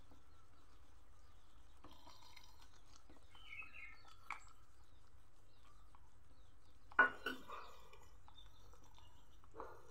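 Wooden spatula stirring in a metal kadai of simmering liquid, scraping and tapping the pan, with a sharp knock about seven seconds in and a smaller one near the end, over a steady low hum.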